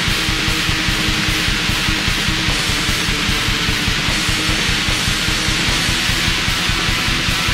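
Black metal song: distorted guitars over a fast, steady, pounding beat.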